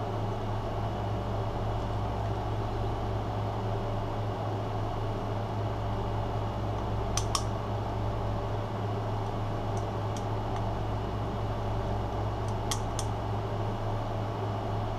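Steady low mechanical hum, with a few faint light clicks, some in pairs, around the middle and near the end, from the plastic oil filter housing cap as its new rubber O-ring is fitted.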